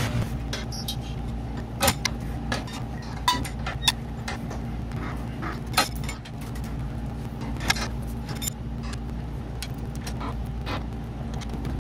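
Metal wrench clinking and scraping on the mounting bolts of a sweeper's hydraulic drive motor: scattered sharp clicks at irregular intervals over a steady low hum.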